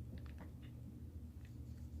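Faint, scattered small clicks and ticks of a flathead screwdriver working at the brittle old plastic clips of a Mercedes W124/W201 seat-adjustment switch housing, over a low steady hum.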